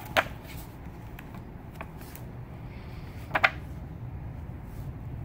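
Glossy pages of a large hardcover book being flipped by a gloved hand, with two short sharp page flaps, one just after the start and one about three and a half seconds in.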